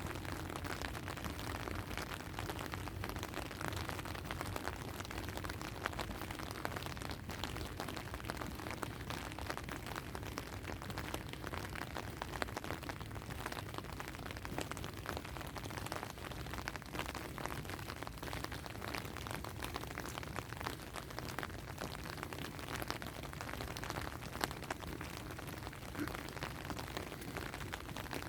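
Steady rain falling, with the dense patter of drops striking surfaces.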